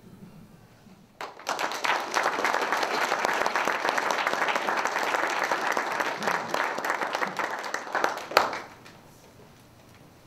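A roomful of people applauding: the clapping starts about a second in, holds steady for about seven seconds, and stops, with one last loud clap just before it ends.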